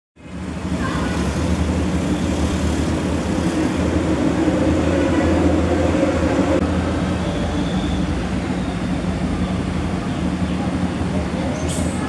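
Steady low rumble of motor traffic, fading in at the start, with a few short high clicks near the end.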